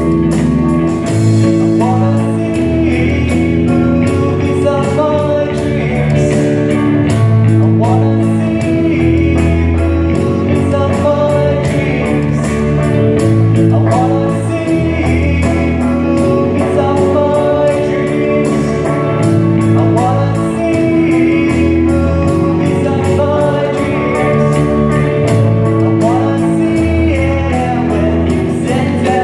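Small live rock band playing: a steady drum beat from an electronic drum kit under bass guitar, electric guitar and keyboard, amplified through small combo amps.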